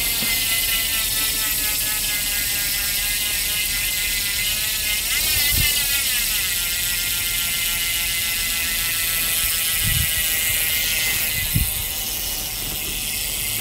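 Freehub of a Leeze carbon rear wheel buzzing steadily as the lifted wheel spins freely, the pawls giving a fast even ticking whir. A few light knocks from handling the bike come through, the clearest one near the end.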